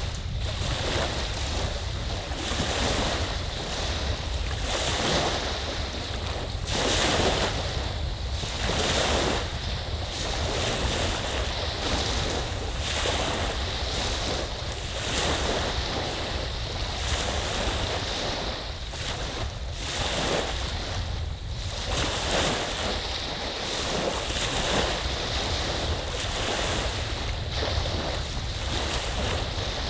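Small lake waves breaking and washing up on a sandy beach, a new wash every second or two, over a constant low rumble of wind on the microphone.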